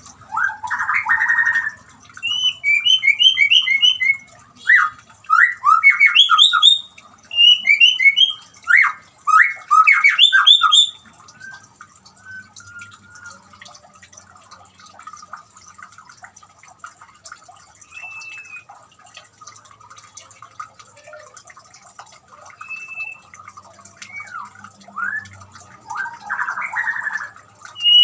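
White-rumped shama singing: rapid loud whistled phrases and trills for the first ten seconds or so, then quieter, with a harsh chatter near the end. A faint steady trickle of water runs underneath.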